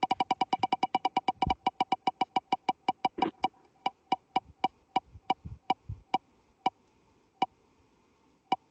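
Online spinning wheel's click sound effect heard through a shared screen: a fast run of short pitched ticks, about eight a second, slowing steadily as the wheel coasts to a stop, with one last lone tick near the end.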